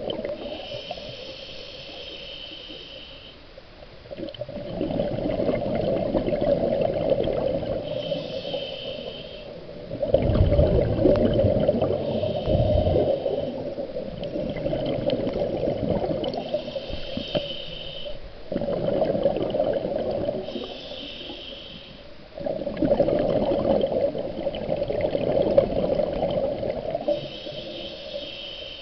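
Scuba diver breathing through a regulator underwater. Each breath is a short hiss as the regulator delivers air, followed by a longer bubbling rumble of exhaled bubbles, repeating several times.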